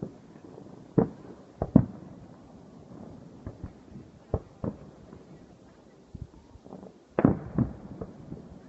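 Aerial firework shells bursting: separate sharp bangs, the loudest a pair about a second in, two more near the middle, and a quick cluster of reports near the end.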